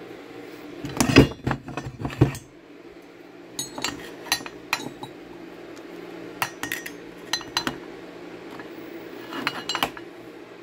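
Metal clanks and clinks as an aluminum LS1 cylinder head is handled and shifted on a workbench: a cluster of louder knocks in the first couple of seconds, then scattered sharp clicks, over a steady low hum.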